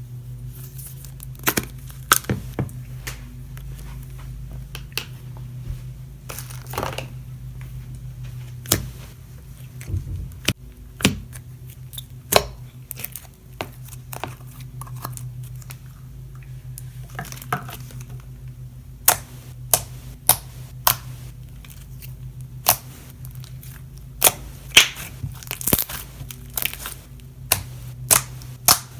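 Slime being squeezed and stretched by hand, giving irregular sharp clicks and pops with some crinkly crunching, over a steady low hum.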